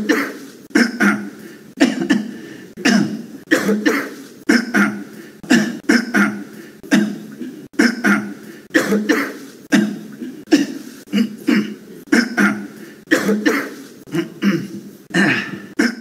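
A man coughing over and over in short, sharp coughs, one or two a second.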